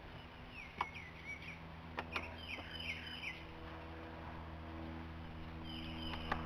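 A bird chirping outdoors in three short runs of quick, falling high notes, with a few light clicks from hands working under the dashboard.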